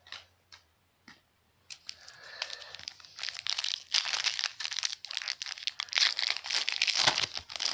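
Trading card pack wrapper being torn open and crinkled by hand. A few light clicks come first, then crackling from about two seconds in that grows louder and busier toward the end.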